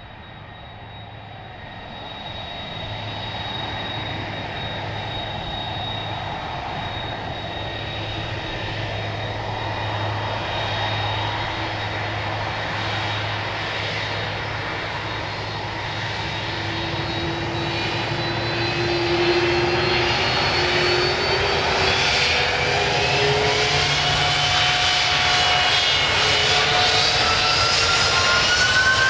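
Airbus A300B4-605R twin turbofan jet engines spooling up to takeoff thrust for the takeoff roll, growing steadily louder. In the second half, whining tones rise and bend up and down over the roar as the airliner accelerates down the runway.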